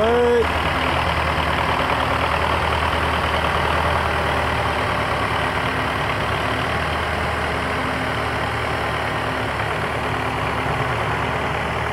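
Diesel engines of a Belarus 510 and a Massey Ferguson 385 tractor running steadily under load as the two pull against each other, chained back to back in a tug-of-war.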